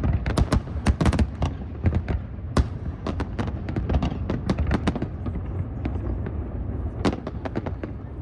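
Fireworks display: a rapid string of sharp bangs and crackles over a continuous rumble, loudest in the first few seconds and again about seven seconds in.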